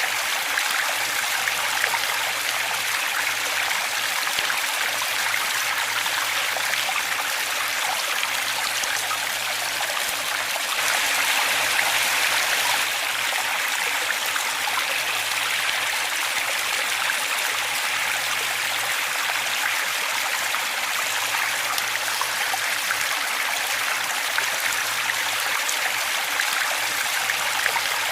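Waterfall: a steady rush of falling, splashing water, briefly a little louder about a third of the way through.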